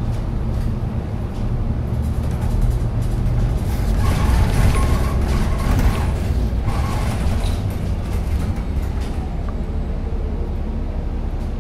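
A 2018 New Flyer XDE40 diesel-electric hybrid bus under way, heard from inside the cabin: a steady low rumble of its Cummins B6.7 diesel and BAE HybriDrive electric drive mixed with road noise.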